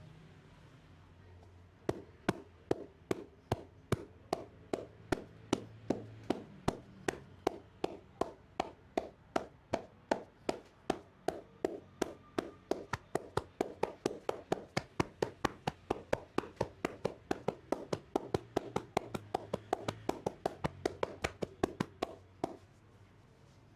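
Hands striking the body in rhythmic percussive massage (tapotement): a steady train of sharp slaps, about three to four a second, starting about two seconds in and stopping shortly before the end.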